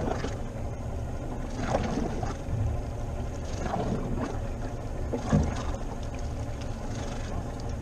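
Water lapping and slapping against the hull of a drifting inflatable boat, over a steady low rumble of wind on the microphone; a few louder slaps come at irregular moments, the loudest about five seconds in.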